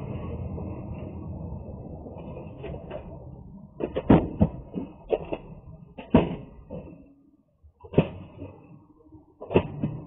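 Cardboard boxes being set down and shoved onto a truck's cargo floor: a series of sharp knocks and thumps starting about four seconds in, after a low steady rumble.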